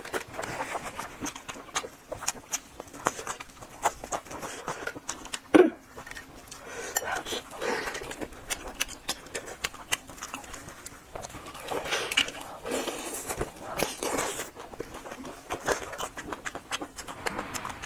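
Close-miked eating sounds: chewing and wet mouth smacks with many quick irregular clicks, and one sharper louder click about five and a half seconds in.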